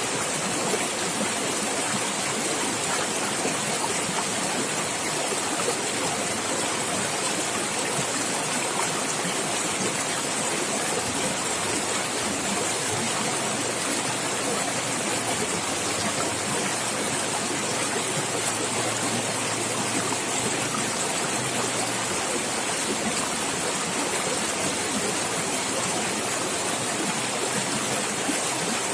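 Water running and gurgling in a natural stream, a steady, unbroken splashing rush.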